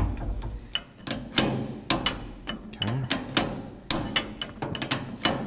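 Sharp metal clinks and taps of a wrench working a nut onto a radiator mounting bolt, coming at irregular intervals.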